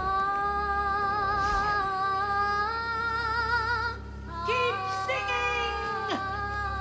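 Recorded track of a woman singing a wordless vocalise: a long high 'ah' held with vibrato for about four seconds, then, after a brief break, new notes that glide upward.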